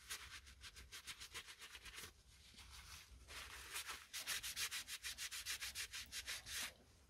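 A cloth rubbed quickly back and forth over the steel of a lathe's carriage, wiping off rust-dissolver gel: faint scrubbing at several strokes a second, in two spells with a short pause about two seconds in.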